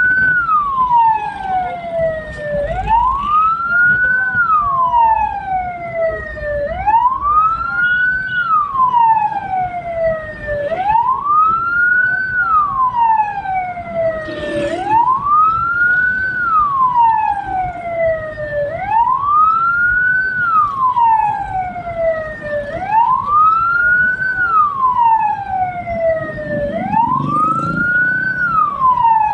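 Vehicle siren wailing, from the hearse carrying the body: a tone that rises and then falls more slowly, repeating about every four seconds.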